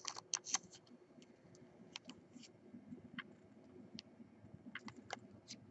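Faint clicks and scrapes of a trading card being slid into a clear plastic card holder, bunched in the first half-second and again near the end, with single ticks between.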